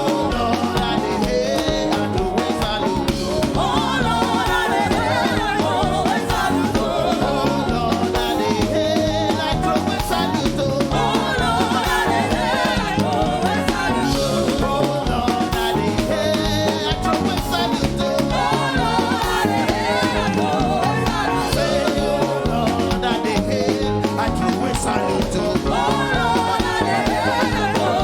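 Gospel praise-and-worship music: voices singing over a band with a drum kit.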